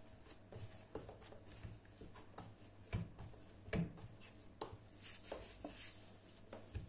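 Floured hands rubbing and patting a ball of soft yeast dough in a glass bowl, smoothing it without kneading. Faint scattered rubbing and light knocks, with a few soft thuds about three and four seconds in.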